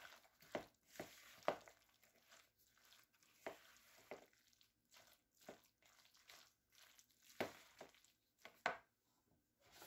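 A spatula stirring and folding a thick, mayo-bound chickpea-and-jackfruit salad in a plastic mixing bowl: faint, irregular strokes and scrapes, the two strongest about a second and a half in and near the end.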